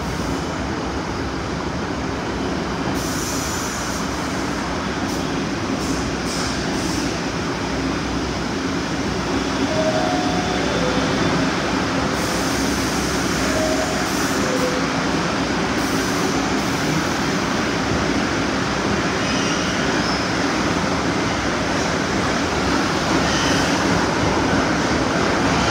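New York City subway train standing at an underground platform with its doors open: a steady rumbling hum of the train echoing in the station, with a few brief faint tones around the middle. Near the end the doors are shut and the train starts to pull away, the rumble growing louder.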